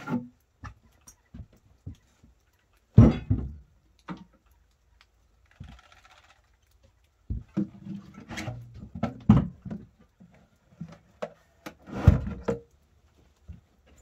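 Plywood body covers of a miniature locomotive being lifted, shifted and set down: a series of wooden knocks and thunks, the loudest about three seconds in and again near the end, with a cluster of clattering knocks in between.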